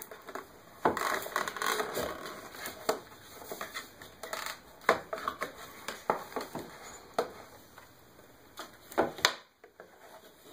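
Cardboard packaging from a laptop's accessory box being handled and rummaged through: irregular rustling and crinkling with scattered sharp taps and knocks. The loudest knocks come about a second in, around five seconds in, and shortly before the end.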